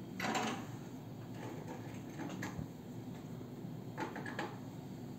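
Soft rustling and scratching of yarn and a crochet hook being worked by hand: a brief swish about a quarter second in, then a few fainter scratches around two and a half and four seconds in.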